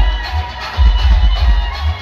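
Loud DJ dance music from a large outdoor speaker stack, with heavy bass pulses dominating and held tones above.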